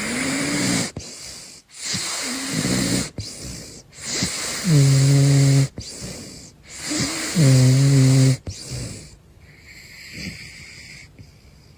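A caracal snoring: a run of slow, noisy breaths a couple of seconds apart, the two loudest in the middle carrying a low, steady snore tone. The breathing drops to a quieter level near the end.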